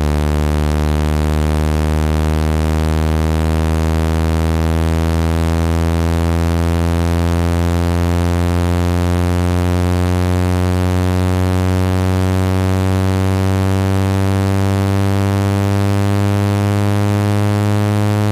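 Steady droning hum of a dust-cleaning machine's motor, its pitch creeping slowly upward.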